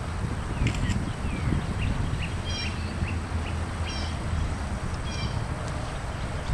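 Birds calling outdoors: a few short chirps, then a clipped call repeated about every second and a half, over a steady low rumble of wind on the microphone.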